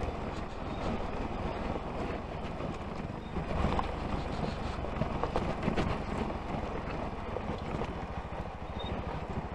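Bajaj Pulsar NS200's single-cylinder engine running steadily in first gear on a rough, rocky climb, with its radiator fan running constantly, and wind on the microphone.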